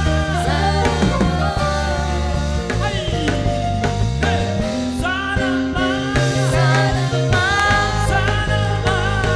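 A live praise band playing a gospel worship song: drums, bass and guitar with some singing, in a stretch without the sung lyric. About four seconds in, a low bass note slides upward.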